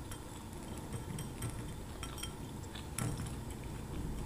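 Light clinks and taps of a skewer and utensils against a dish, a few scattered through, the loudest about three seconds in.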